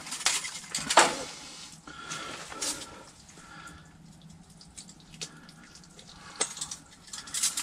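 Wet handling sounds of a freshly caught burbot, with water drips and squelches and a few sharp knocks, the loudest about a second in.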